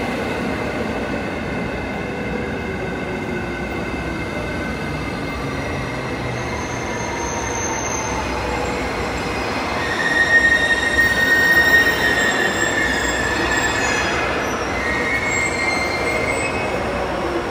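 E653 series express electric train moving along the platform, its motor whine slowly falling in pitch. A high squeal from the wheels or brakes rises about ten seconds in and lasts about two seconds.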